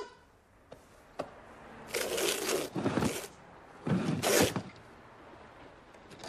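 Wooden chair being pulled out on the floor and sat in: a couple of light knocks about a second in, then three short scraping bursts around two, three and four seconds in.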